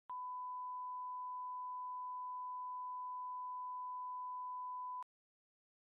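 A steady 1 kHz test tone, the reference beep that goes with SMPTE colour bars, held at one pitch for about five seconds. It starts and stops with a sharp click.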